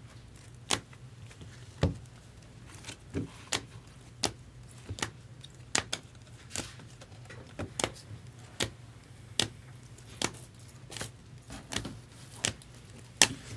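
A stack of trading cards in clear plastic holders being flipped through by hand, with a sharp plastic click as each card is moved, about one a second at uneven spacing. A faint steady low hum runs underneath.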